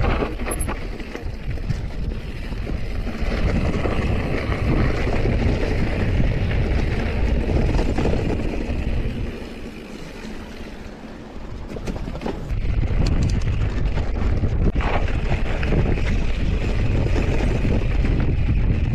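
Wind rushing over the microphone as a mountain bike rolls down a rough, rocky dirt track, with short knocks and rattles from the bike over the stones. The rush drops for a few seconds about halfway through, then comes back.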